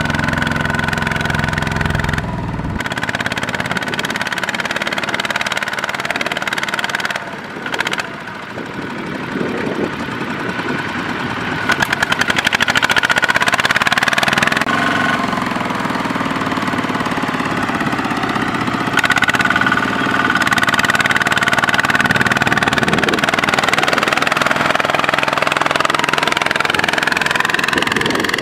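Kubota ZT155 single-cylinder diesel engine of a two-wheel walking tractor running under load as it hauls a loaded trailer through deep mud, its engine note rising and falling. The sound breaks off abruptly about two seconds in and again about seven seconds in.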